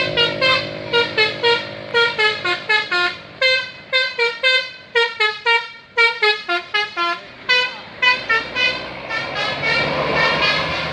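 A bus's telolet basuri musical horn playing a quick tune of short, separate notes, about three a second, stepping up and down in pitch. Near the end the notes thin out under a rising rushing noise.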